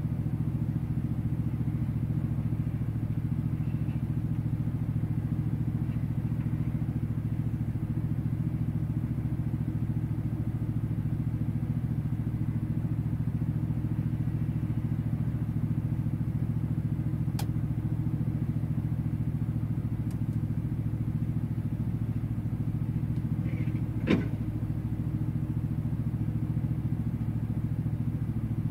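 Heavy diesel engine idling with a steady, even drone, heard from inside the truck cab. A single sharp knock comes about 24 seconds in, with a faint click a few seconds before it.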